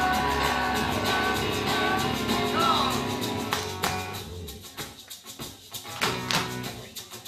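Live acoustic band (acoustic guitar, electric bass, keyboard piano, cello and shaker) holding out chords. It drops out about four seconds in, leaving sharp hand claps and light percussion.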